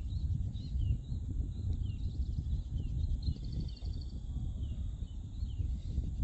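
Birds chirping in short repeated calls over a low, uneven wind rumble, with a quick trill about three seconds in.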